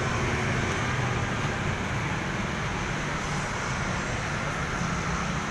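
Road traffic on a city street: a steady rumble and hiss of passing vehicles and motorbikes.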